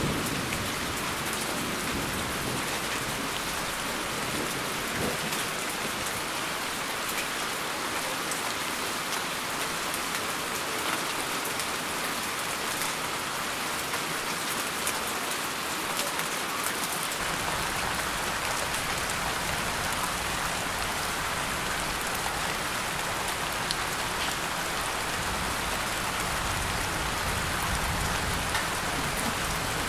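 Steady rain falling, a continuous hiss with the fine patter of individual drops.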